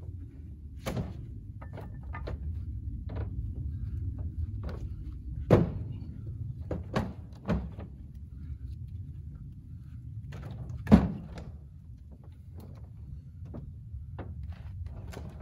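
Firewood rounds and split pieces being dropped and stacked in a pickup truck bed: irregular wooden thunks and knocks, the two loudest about five and a half and eleven seconds in.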